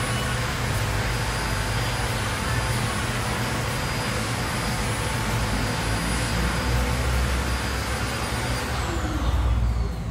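Steady rushing air with a high whine from an electric blower motor, switched off near the end, its whine falling in pitch as it winds down.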